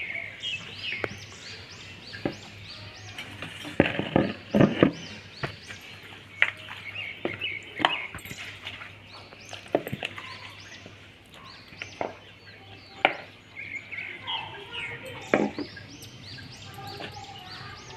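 Scattered knocks and clatter of kitchen utensils and bowls being handled while marinade ingredients are prepared, with small birds chirping in quick repeated calls in the background near the start and again near the end.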